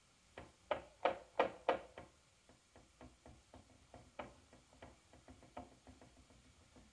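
Fork poking holes in a baked cake, its tines tapping on the bottom of the glass baking dish in a quick series of taps, about three a second. The taps are louder during the first two seconds, then fainter.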